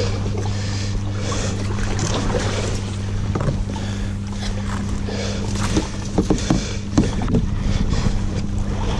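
Fast, shallow river water rushing and splashing around a paddled kayak. In the second half there is a run of sharp knocks and scrapes as the paddle and hull catch on the overgrown bank. A steady low hum runs underneath.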